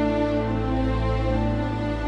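Slow, soft background music: long held notes that change slowly over a steady low bass.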